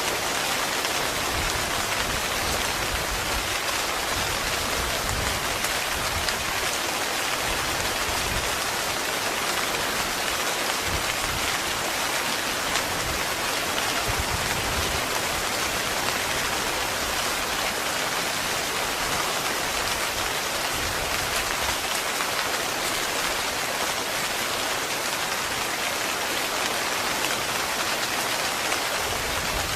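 Heavy rain falling steadily on a tent, an even, unbroken patter of drops.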